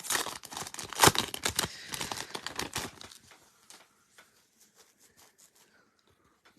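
Crinkling and tearing as football trading cards and their pack wrapper are handled, with dense rustling and sharp snaps, the loudest about a second in. It dies away to faint ticks after about three seconds.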